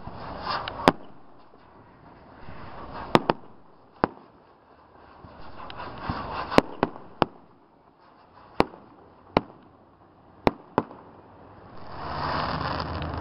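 Aerial fireworks bursting overhead: about a dozen sharp bangs at uneven intervals, some in quick pairs and triples, with crackling and fizzing from the bursts between them. Near the end a steady rumbling noise comes up and stays.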